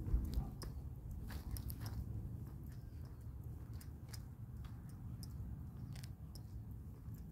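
Handling and walking noise on a handheld phone microphone: a low rumble with scattered sharp clicks and crunches at uneven intervals.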